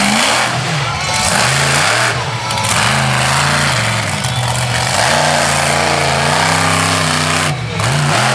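Mountaineer monster truck's engine revving hard, its pitch climbing and dropping again and again as the throttle is worked.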